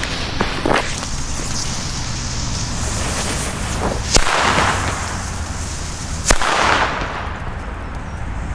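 Two XP3 black-powder firecrackers with preburners: a short hiss of the burning preburner, then two sharp bangs about two seconds apart, the first a little past four seconds in.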